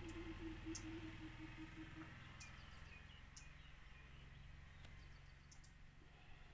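Near silence: faint outdoor ambience. A low, pulsing drone fades out about two seconds in, followed by a few faint bird chirps and light ticks.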